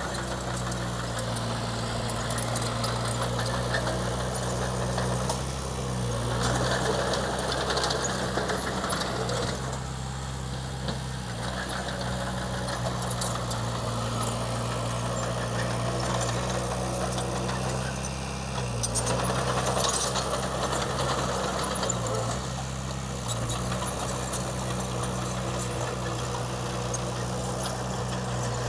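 Diesel engine of a Komatsu D20P bulldozer running steadily, with two stretches of louder, noisier working sound: one about six to nine seconds in, the other around twenty seconds in.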